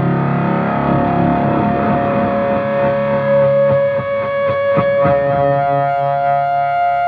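Distorted electric guitar drone played through amplifiers with effects: a sustained, dense chord that settles into a steady held tone, with a few sharp picked hits about four to five seconds in.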